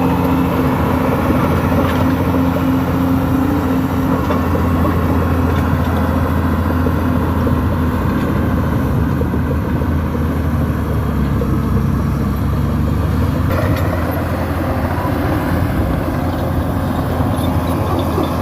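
New Holland crawler dozer's diesel engine running steadily, a deep continuous drone.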